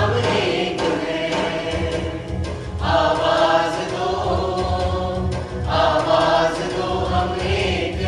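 A song: a group of voices singing held notes together over instrumental backing with a pulsing low beat.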